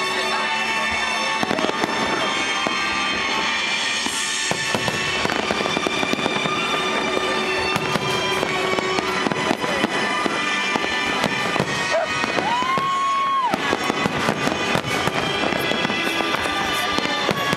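A fireworks display with aerial shells bursting in quick succession, bangs and crackling almost without pause, over accompanying music. A short whistle sounds about two-thirds of the way through.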